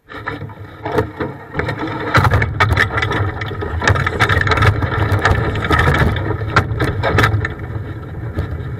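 Race vehicle's engine running at low speed while it rolls through the pits, picked up close by an onboard camera. The engine cuts in abruptly, gets louder about two seconds in, and has a lot of knocking and rattling over it.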